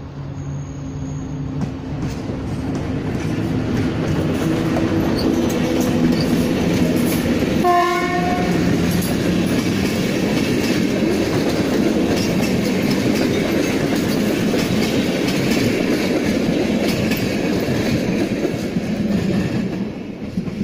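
EP07 electric locomotive and its passenger coaches pulling away and rolling past, the rumble and wheel clatter on the rails building up and then holding steady. A short horn blast sounds about eight seconds in. The noise drops off near the end as the last coach goes by.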